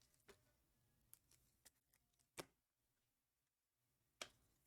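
Near silence with five faint, short clicks, the loudest about halfway through: trading cards being handled.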